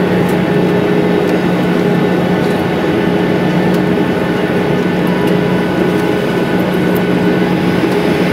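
Steady cabin drone of a Boeing 737-800 taxiing after landing, heard from inside the cabin: its CFM56 jet engines near idle under a constant low hum.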